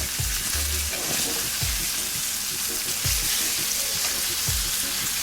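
Flour-dredged red snapper fillets sizzling steadily as they fry in a frying pan.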